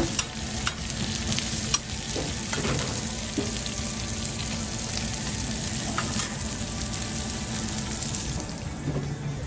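Sliced onion, carrot, ginger, garlic and chicken bones sizzling steadily on a hot flat-top steel griddle. A metal spatula turns them, giving a few sharp clicks and scrapes against the steel.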